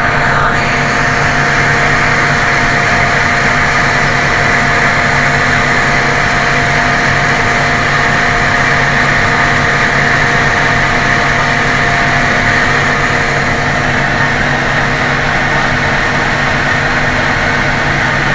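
John Deere 8320R tractor running steadily while pulling a working KMC peanut combine during harvest: a loud, even engine and machine drone with a steady hum over it.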